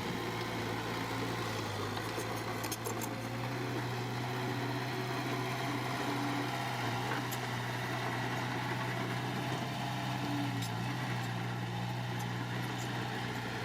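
Diesel engine of heavy earthmoving machinery running steadily at a low, even drone, with a few faint clinks.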